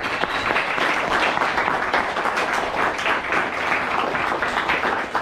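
A crowd of guests applauding: many hands clapping together in a dense, even patter.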